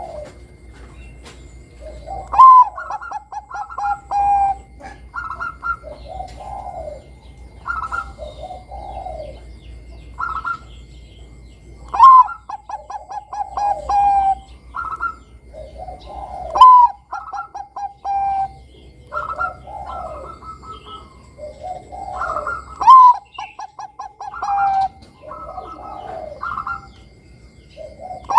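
Perkutut Bangkok zebra dove singing its cooing song: each phrase opens with a loud note and runs on into a quick series of short staccato coos. The phrase comes over and over, four of them loudest, with softer phrases in between.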